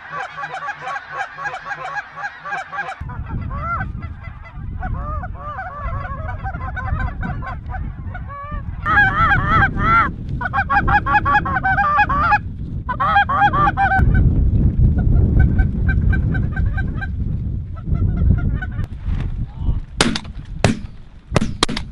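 A flock of snow geese calling loudly and continuously, mixed with a hunter's mouth-blown goose call, with wind rumbling on the microphone from about three seconds in. Near the end come four sharp bangs in quick succession.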